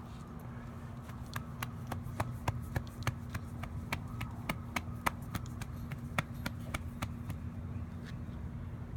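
A hand patting a raccoon's back to burp it: a run of light, irregular taps, about three a second, starting over a second in and stopping near the end, over a steady low hum.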